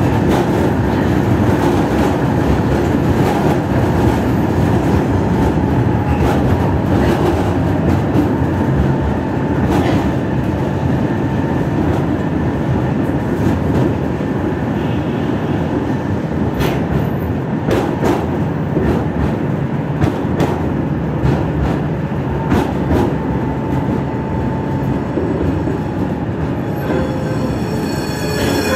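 Tatra T3E tram, a car with thyristor pulse control, running along the track with a steady rolling rumble and occasional sharp knocks over rail joints. A high, ringing squeal comes in near the end.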